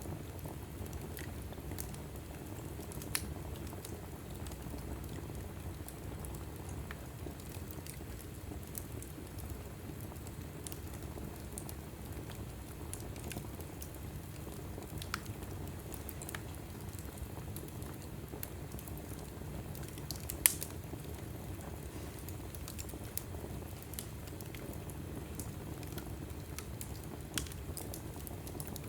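Wood fire burning in a fireplace: a steady low rumble with frequent small crackles. A louder pop comes about twenty seconds in.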